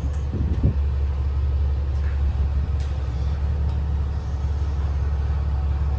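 Diesel truck engine idling with a steady low rumble, with a couple of faint knocks about half a second in.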